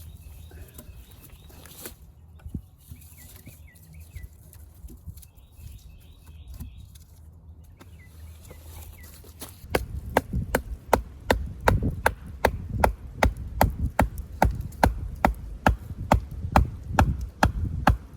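Rapid chopping strokes into wood with a small hand tool, about three sharp blows a second, starting about ten seconds in and keeping on steadily.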